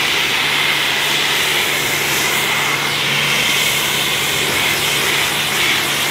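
Pressure washer jetting water onto a car's side window and door: a steady hiss of spray over a steady low hum.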